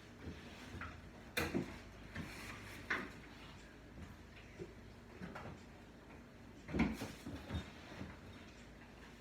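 Scattered knocks and clunks of kitchen containers and utensils being handled and set down, with the loudest about one and a half seconds in and again near seven seconds.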